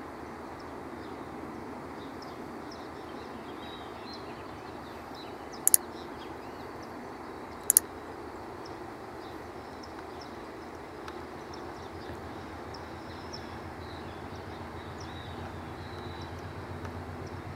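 A low, steady train rumble with faint birdsong above it, broken twice near the middle by a sharp click about two seconds apart. Toward the end a low, pulsing diesel throb grows as a train hauled by BB36-7 diesel locomotives approaches.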